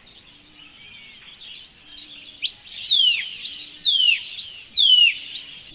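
A run of four loud whistles about a second apart, starting about two and a half seconds in, each sweeping sharply up and then gliding down.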